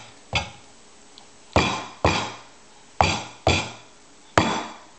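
Repeated sharp knocks, about six, irregularly spaced, each with a short ringing tail.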